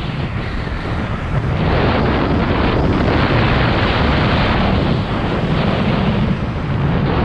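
Wind rushing over the microphone of a skier moving downhill, mixed with the hiss of skis running on snow, surging and easing every second or two.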